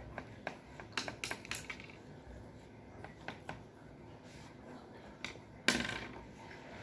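Crayons tapping on paper and a table top: scattered light clicks, with one louder knock near the end.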